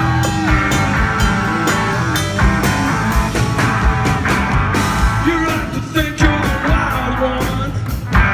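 Live rock band playing a short instrumental stretch between vocal lines, drums keeping a steady beat under held guitar and keyboard chords.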